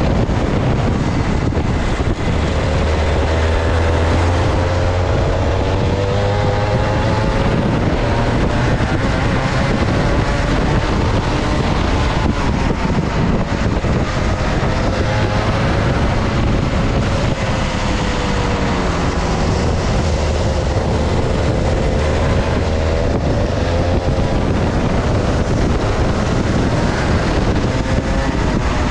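Two-stroke kart engine running hard, heard from the driver's seat, its pitch rising and falling several times as the throttle is opened and closed through the corners. Wind buffets the microphone.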